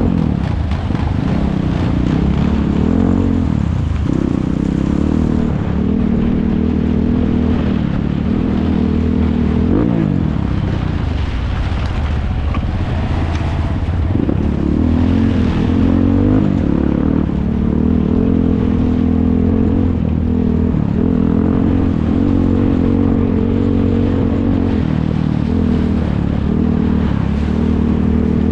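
ATV engines revving, their pitch rising and falling again and again as they accelerate and ease off through the course.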